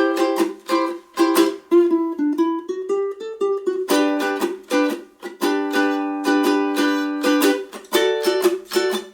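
Acoustic ukulele playing an instrumental break between verses of a blues song: a picked single-note melody for about four seconds, then rhythmic strummed chords.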